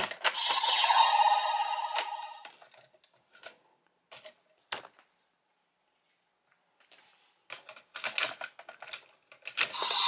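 DX Oneness Raise Buckle toy playing an electronic sound effect that fades out after about two seconds, then sharp plastic clicks as its parts are moved, with a quick run of clicks and snaps near the end as a piece is fitted into it.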